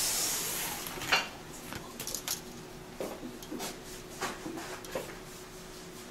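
Handling noise: scattered light knocks and rubs as a flat spiral-wound copper coil is picked up and held, over a faint steady hum. A hiss fades out in the first second.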